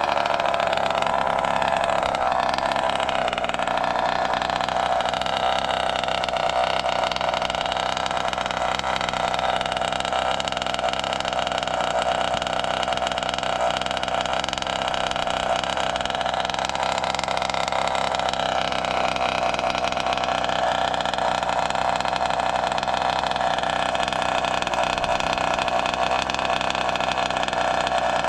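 Zenoah G290RC two-stroke engine on a Goped, fitted with a DDM Racing Dominator expansion pipe, idling steadily at about 4,000 RPM. It is warming up after a cold start.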